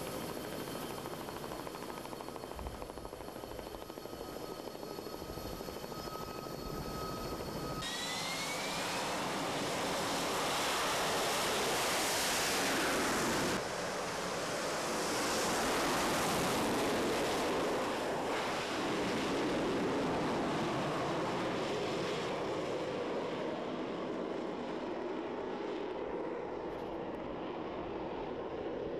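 Aircraft turbine engines running: a steady high whine at first. About a quarter of the way in it changes abruptly to a rising whine and a loud rush of engine noise that peaks through the middle, with a few sudden shifts, and eases off toward the end.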